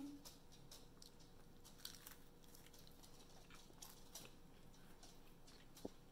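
Faint chewing of crisp pan-fried chive pancake: irregular soft crunchy clicks as the pieces are bitten and chewed.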